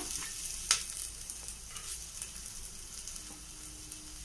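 Chopped ginger sizzling and crackling in hot ghee, with one sharp click under a second in.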